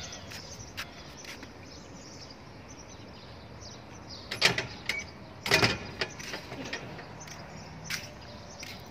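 Faint, steady outdoor background noise, broken by a few sharp knocks or taps midway, the two loudest about a second apart.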